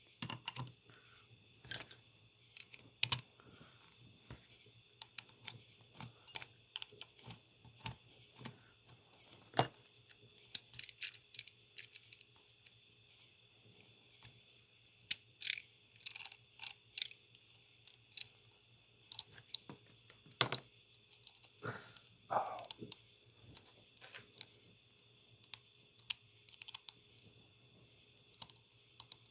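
Scattered small metal clicks and taps from working on a Matco flex-head ratchet's head, taking it apart to refit the selector's detent ball, with a short scrape a little past two-thirds in. A faint steady hum and hiss runs underneath.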